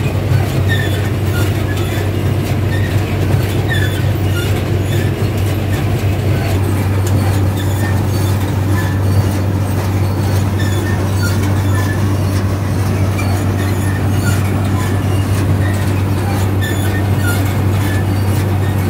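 Heavy machinery running steadily: a low, even drone with scattered short metallic squeaks and clicks over it.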